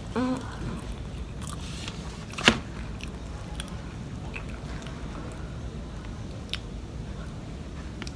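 Chewing and eating sounds as fried catfish is pulled apart by hand, with scattered small clicks and one sharp click about two and a half seconds in. A brief hummed voice sound comes right at the start.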